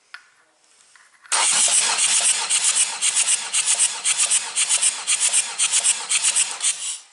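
Starter motor cranking a Ford Ranger 2.2 L 16-valve turbodiesel engine for a compression test of its second cylinder. The cranking starts about a second in and runs for nearly six seconds with an even pulsing of about four beats a second as the cylinders come up on compression, then stops abruptly.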